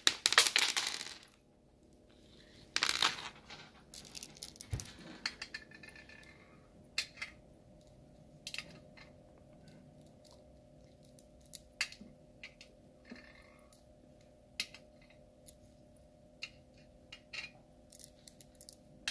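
Smarties candies rattling in a handful, then light clicks and taps as the hard-shelled sweets are set down one at a time on a metal tin lid. There is a louder rustle at the start and another about three seconds in.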